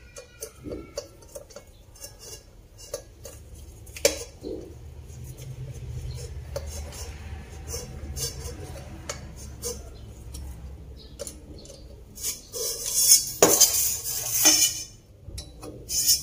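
A screwdriver working a screw into the metal handle bracket of a stone-coated frying pan, with scattered small metallic clicks and clinks of the tool against the screw and pan. About twelve seconds in comes a louder stretch of scraping and rattling as the handle and pan are moved.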